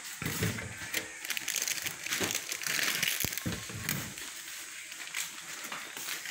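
Plastic crinkling and rustling with light knocks as items are handled, and one sharp click about three seconds in.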